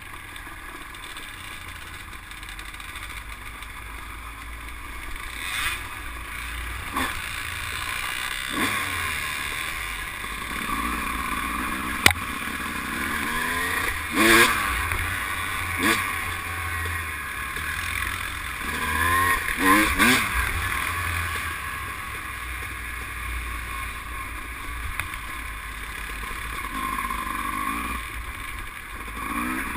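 ATV engine running under the rider, its pitch rising and falling as the throttle is worked on a rough trail, with a few sharp knocks and clatter as the machine jolts over the rocks; the loudest knock comes about twelve seconds in.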